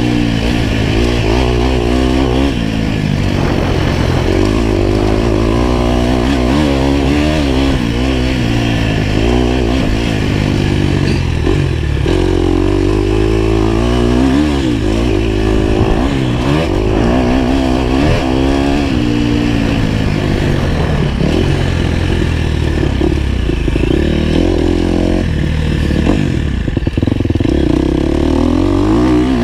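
Dirt bike engine heard close up from the rider's position, revving up and dropping back over and over as it is ridden hard around a motocross track, with shifts and throttle changes every second or two.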